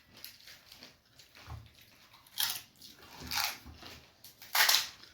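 People eating fuchka (pani puri): crisp hollow puri shells being bitten and chewed, with a few short crunches, the loudest near the end.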